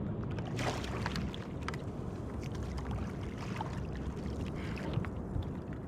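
Water splashing and lapping against a kayak hull, with a splash about a second in, over a steady low rumble of wind on the microphone.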